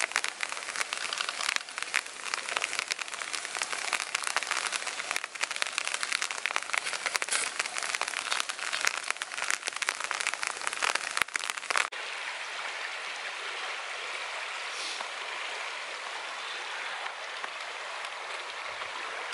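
A dense, crackling patter of rain for about twelve seconds, then, after a sudden cut, the steady even rush of a shallow river running over stones.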